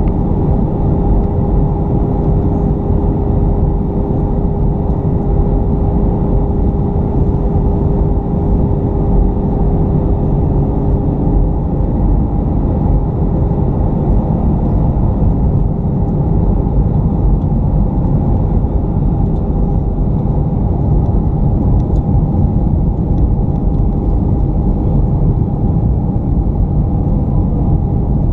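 Steady cabin noise of a jet airliner in flight, heard from a window seat: the dull rush of the jet engines and airflow over the fuselage, with a steady hum running through it.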